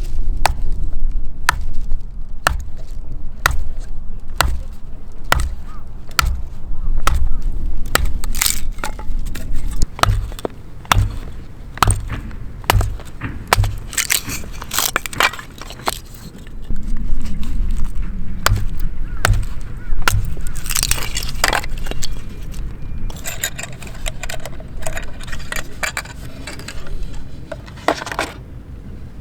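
A long series of irregular sharp cracks and knocks, with a run of evenly spaced dull thumps about a third of the way through and crackling, breaking sounds later on.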